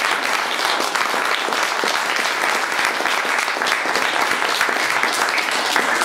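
An audience applauding, many people clapping at once in a steady, dense patter.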